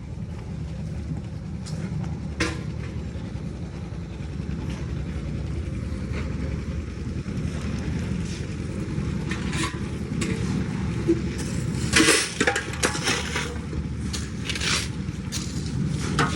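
Heavy construction machinery engine running steadily, with scattered scrapes and knocks. The loudest cluster of clatter comes about twelve seconds in.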